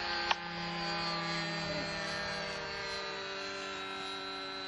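Radio-controlled model airplane's motor droning in flight at a distance, a steady whine of several tones whose pitch drifts slightly as the plane moves. A sharp click about a third of a second in.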